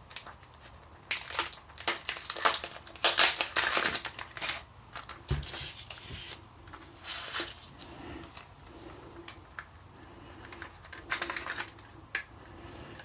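Plastic cellophane wrapper crinkling and tearing as it is peeled off a Sony MiniDisc case. This comes in dense bursts of crackling over the first few seconds, then gives way to scattered clicks and handling of the plastic case, paper inlay and disc, with another short cluster of crinkles near the end.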